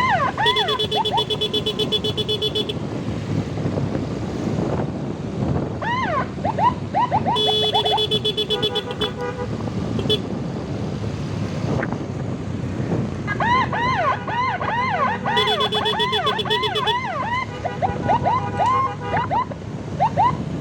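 Emergency siren in a fast rising-and-falling yelp, cut by three long, steady horn blasts, over motorbike engine and traffic noise.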